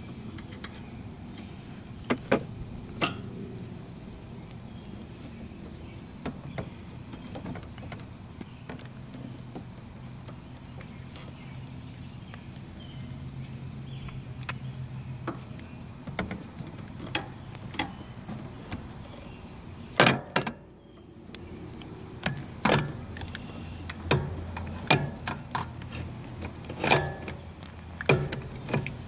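Scattered metallic knocks, clinks and scrapes of a replacement electric starter being handled and worked into place on a Kawasaki FS691V mower engine, the loudest knocks about twenty seconds in and a run of further ones near the end.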